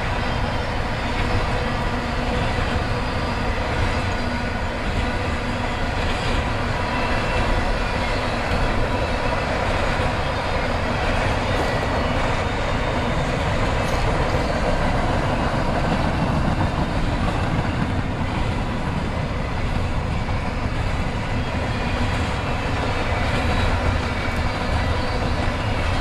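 Freight train's cars rolling past, a steady, unbroken noise of wheels on the rails.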